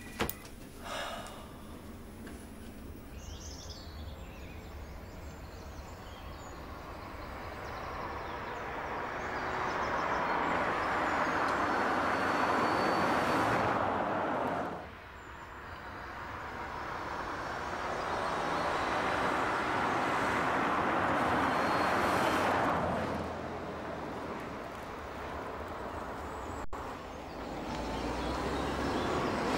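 Car driving along a country road: the engine and tyre noise swells as it comes near and fades again, twice, then rises once more near the end as another car approaches.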